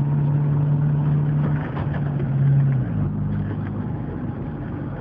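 Car engine running while the car is driven slowly, heard from inside the car, with a steady low note that drops about three seconds in as the engine eases off.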